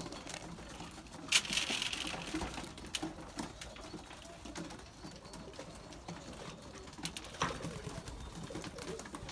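Racing pigeons cooing softly, with a short rustling burst about a second and a half in and a few light clicks.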